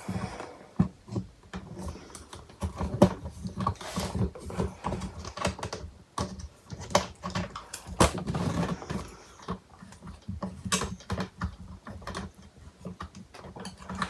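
Close handling noise on the recording phone as a dog paws and nudges it: irregular clicks, taps and scuffs over a low rumble, with sharper knocks about three and eight seconds in.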